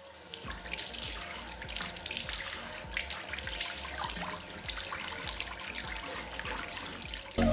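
Water running from a bathroom sink mixer tap and splashing over hands being washed, with irregular small splashes into the basin. Loud music cuts in near the end.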